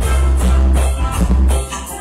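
Reggae played loud through a radiola sound system, with heavy bass.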